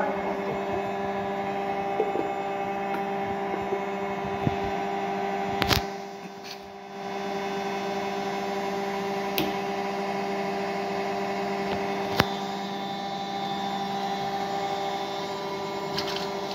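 A steady electrical hum, with a few sharp clicks and taps over it, the loudest about twelve seconds in. The hum briefly fades about six seconds in.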